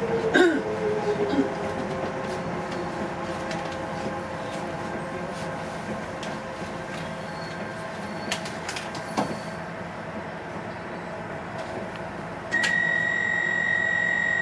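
Docklands Light Railway train running and slowing, its motor whine falling slowly in pitch, with a few sharp clicks. Near the end a steady high-pitched squeal sets in as the train brakes into the station.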